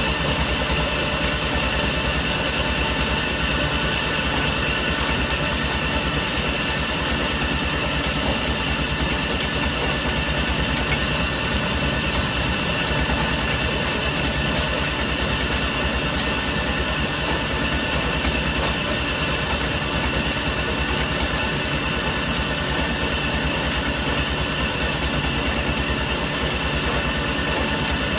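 Sawmill machinery running steadily, a continuous mechanical drone with a rapid low pulsing and no change in level.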